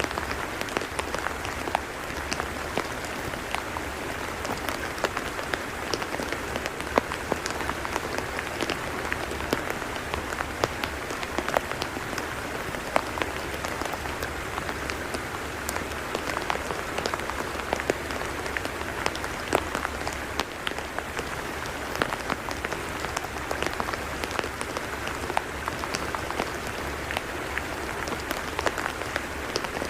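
Rain falling steadily on a wet tidal mudflat, an even patter scattered with many small sharp drop ticks.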